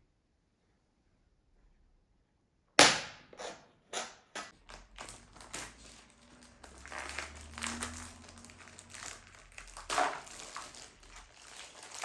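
Near silence, then a single sharp knock about three seconds in, followed by irregular clicking, crackling and rustling as objects and crinkly material are handled.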